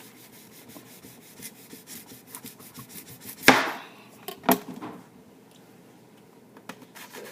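Knife slicing a potato on a cutting board: a run of quick light taps from the blade, then two loud knocks about a second apart a little past halfway, and a few faint taps near the end.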